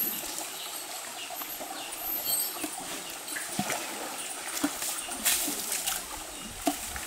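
River water splashing as it is scooped and thrown with a bamboo section over a bathing Asian elephant. A few separate splashes come over the steady trickle of a shallow river.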